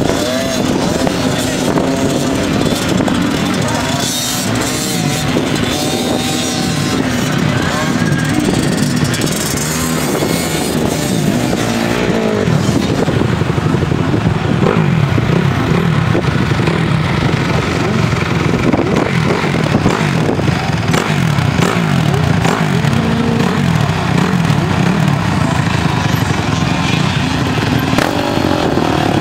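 Children's small motocross bikes being ridden around a dirt track, their engines revving with the pitch rising and falling. From about halfway the engine sound turns lower and denser.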